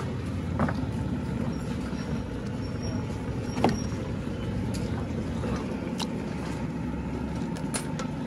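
Steady low rumble of road traffic, with a few sharp clinks of a metal ladle against a large steel pot; the loudest clink comes about three and a half seconds in.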